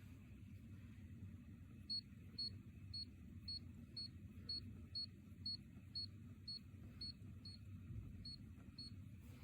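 Electronic beeper sounding short, high-pitched beeps about two a second, starting about two seconds in and repeating around fourteen times, with one slightly longer gap near the end.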